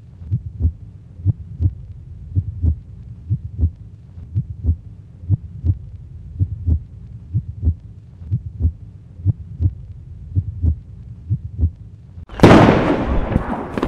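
Heartbeat sound effect, a steady double thump about once a second, cut off about twelve seconds in by a sudden loud explosion sound effect that dies away slowly.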